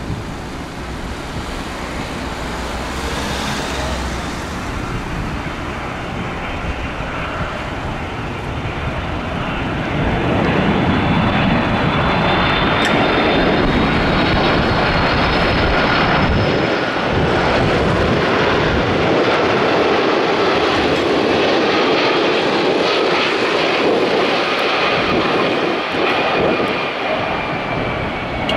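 Boeing 747-400 freighter's four jet engines and airframe on final approach with landing gear down: a rushing jet noise that grows louder about a third of the way in and stays loud as the aircraft passes close by, with a high engine whine on top that drops slightly in pitch as it goes past.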